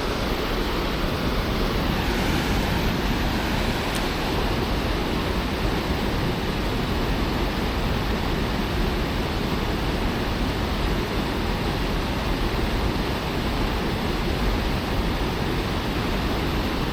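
Steady rush of fast-flowing floodwater pouring through white water below a small dam, an even roar at a constant level.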